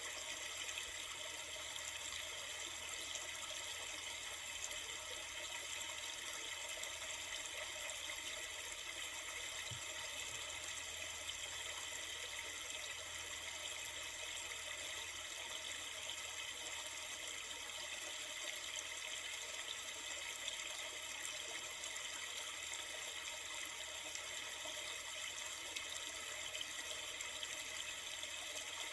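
River water rushing and burbling steadily, an even hiss with no breaks.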